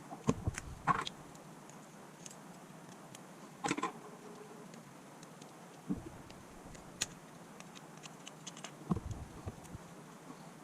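Scattered small clicks and taps of tools and parts handled on a Samsung Galaxy S22 Ultra smartphone during repair, in short clusters over a low steady room hiss.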